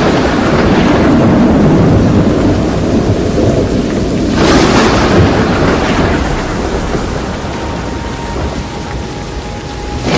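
Severe thunderstorm noise: heavy rain and wind roar, with a loud surge right at the start and another about four and a half seconds in, each dying away over a couple of seconds.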